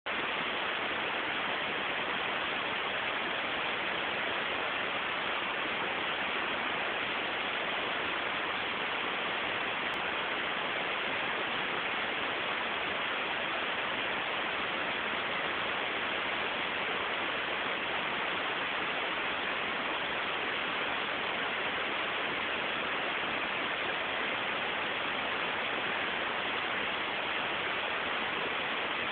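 Steady, even hiss of static from the recording, with no other sound above it.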